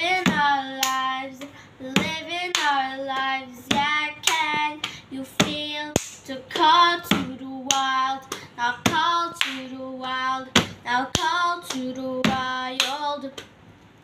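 A girl singing a song while keeping a repeating rhythm pattern (an ostinato) with hand claps and pats, a sharp stroke about twice a second under the tune. The singing and clapping stop shortly before the end.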